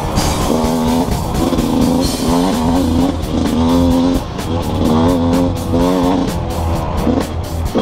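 GasGas EC125 two-stroke enduro bike engine running on the trail, its pitch rising and falling every second or so with the throttle, mixed with background music.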